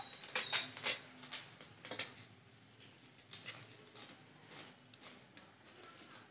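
Crisp pani puri shells crunching and being chewed: a quick run of sharp crackles in the first two seconds, then scattered softer ones.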